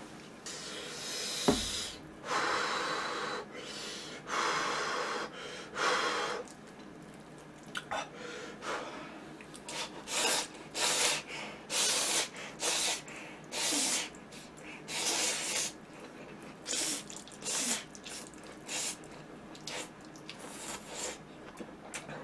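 A person slurping instant noodles off chopsticks: long airy slurps in the first few seconds, then a run of short slurps, about one or two a second. A single sharp click about a second and a half in is the loudest moment.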